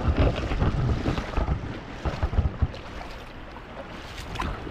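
Wind buffeting the camera microphone in gusts, strongest in the first two to three seconds, over a steady rush of river water.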